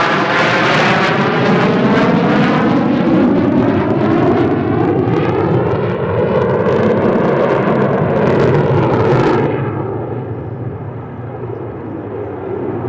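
Jet engine noise from an F-16C flying a display manoeuvre overhead: a loud roar with a sweeping, phasing quality as the jet passes. About nine seconds in the high hiss drops away abruptly and the sound grows quieter as the jet moves off.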